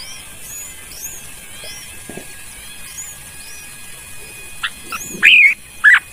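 Birds calling: a steady run of faint, high, short chirps about twice a second, then a few loud calls near the end, the last two the loudest.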